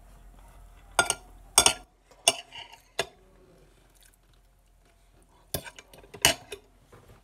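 Metal fork and knife clinking and scraping against a plate while food is cut and eaten. There are four sharp clinks in the first three seconds, then a few more near the end.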